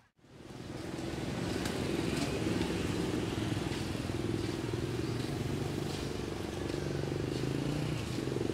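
A motor vehicle engine running steadily with a low, even hum. It fades in over about the first second.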